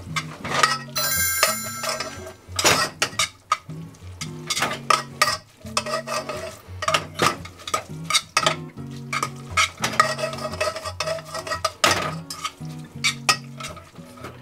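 Tongs clicking and scraping against a pan as spaghetti is tossed and mixed, many quick irregular clicks, over background music with a repeating low bass pattern.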